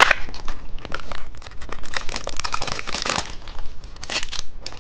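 Plastic candy wrapper crinkling and tearing in quick irregular crackles as a surprise-egg candy package is opened by hand.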